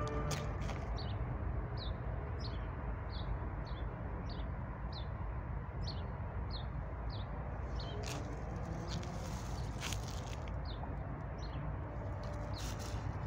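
A small bird chirping over and over, about two short high chirps a second, for the first seven seconds or so. Beneath it runs the steady low rumble of distant city and freeway traffic.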